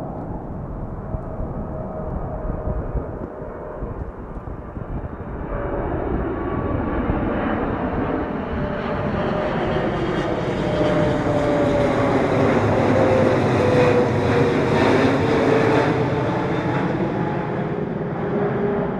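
Boeing 777 jet engines on approach with the landing gear down, passing low overhead: a rushing jet noise that swells to its loudest about two-thirds of the way through, with a whine that slides down in pitch as the plane goes by, then starts to fade.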